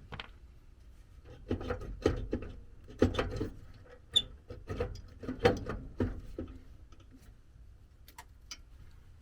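Hand work on the metal burner assembly of a gas furnace: a run of knocks, scrapes and rattles of metal parts being pried and shifted, busiest from about one and a half to six and a half seconds in, then a few faint ticks.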